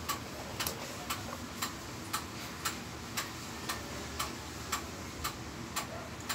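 Steady, even ticking at about two ticks a second, with a low room hum beneath.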